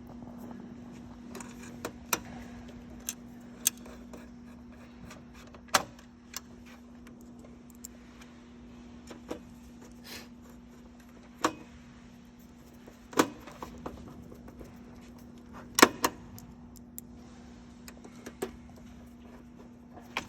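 Scattered sharp clicks and taps from plastic control-panel parts, screws and wires being handled during reassembly, over a steady low hum.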